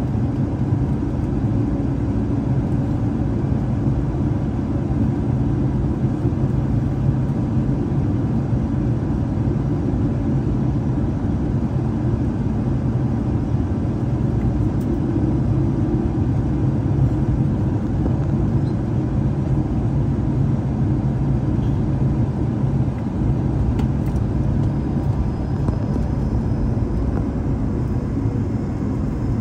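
Cabin noise of an Airbus A220-300 taxiing: a steady low rumble from its Pratt & Whitney PW1500G geared turbofans at taxi power, with faint steady engine tones over it, heard from a window seat inside the cabin.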